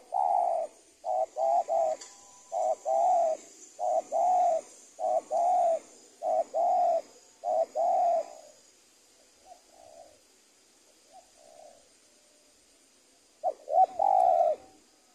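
Spotted dove cooing: a run of loud, evenly spaced coo phrases for about eight seconds, then a few faint notes, and one more loud phrase about a second before the end.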